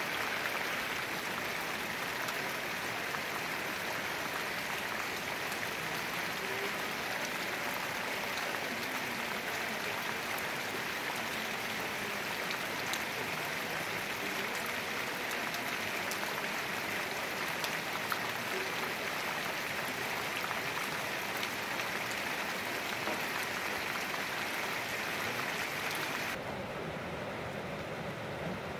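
Steady heavy rain falling: a dense, even hiss dotted with tiny drop ticks. About 26 s in the sound changes abruptly to a softer, duller hiss.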